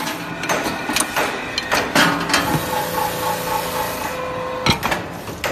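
Wooden pickaxe handle shaping machine running with a steady hum and whine, under a string of sharp wooden knocks and clacks, the loudest about two seconds in and again near the end.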